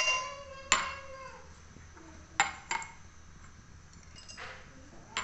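Glass clinking: several sharp taps of glass against a glass beaker spread over the few seconds, the first ones leaving a brief ring.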